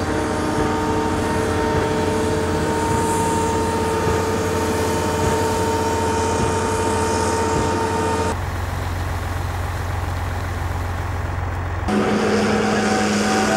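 Construction machinery engines running steadily, a low drone with a steady whine over it. The sound changes suddenly twice: it drops and narrows a little past eight seconds in, then comes back fuller with a new pitch about twelve seconds in.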